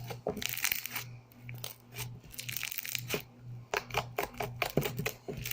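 Fluffy slime being squeezed and stretched by hand, giving a string of small pops and crackles with a couple of longer squishing stretches.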